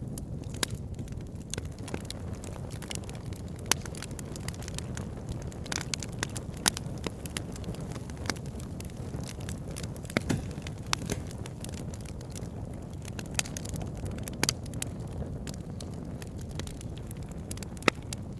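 Campfire of split firewood logs burning, with irregular sharp crackles and pops over a steady low rush; a few pops stand out louder, a little under 4 s in, near 7 s and near the end.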